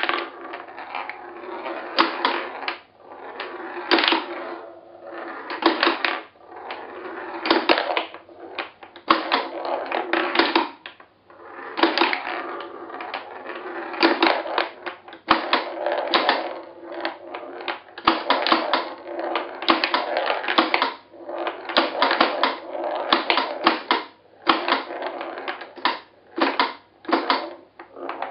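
Steel ball rolling and rattling around a homemade mechanical plywood pinball table, with the wooden flippers clacking and the ball knocking against the plywood rails, in repeated bursts a second or two apart with short lulls between.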